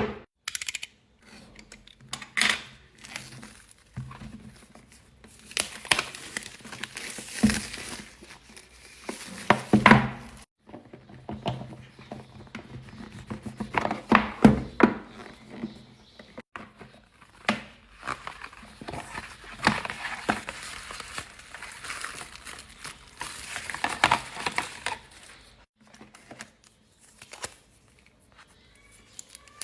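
Phone packaging being handled during an unboxing: irregular crinkling and rustling of plastic wrap and cardboard, with tearing and sharp clicks and taps throughout.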